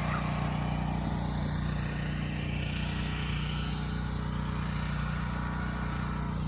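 A steady low engine hum, holding one pitch, with a soft hiss above it that swells and fades.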